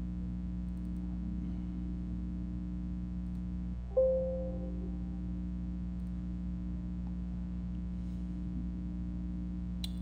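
Steady electrical hum, with a single bell-like electronic alert chime about four seconds in that dies away within a second.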